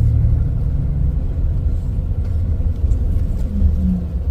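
Steady low rumble of a moving vehicle, engine and road noise heard from inside the cabin.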